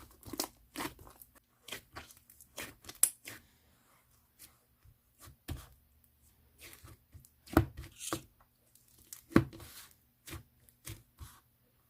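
Hands squishing and stretching slime, giving irregular sticky clicks, crackles and pops, with three louder pops in the second half.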